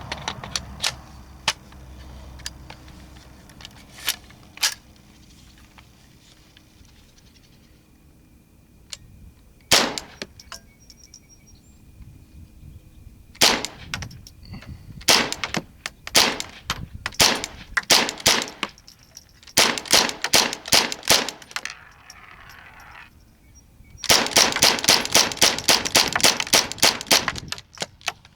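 German Sport Guns StG-44 replica rifle in .22LR being fired semi-automatically. A few spaced single shots quicken into a fast string of about three shots a second near the end.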